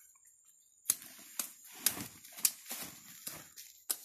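Machete chopping into cassava stalks and roots: five sharp chops, the first four about half a second apart, the last one about a second and a half later.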